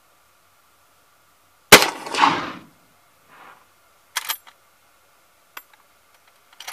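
Single shot from a Marlin 336 lever-action rifle firing a Hornady LeverEvolution .30-30 round, loud and ringing on for about a second. A few sharp metallic clicks follow a couple of seconds later as the lever is worked to eject the case and chamber the next round.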